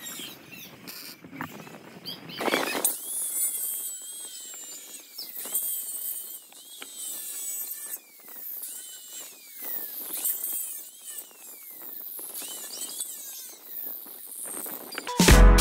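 Wire-feed welder crackling as a bead is run on the steel frame, then, about three seconds in, an angle grinder running on the steel, its high whine dropping and recovering again and again as the disc bites. Loud music comes in right at the end.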